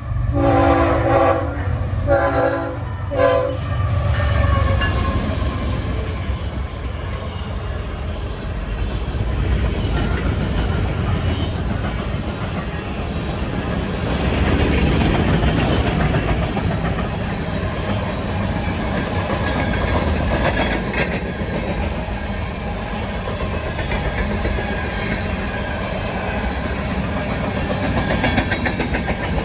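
Air horn of a lead BNSF GE ES44C4 locomotive sounding three chord blasts, a long one, a shorter one and a short one. The locomotives and a CSX freight train then pass close by, engines running and wheels clattering over the rail joints.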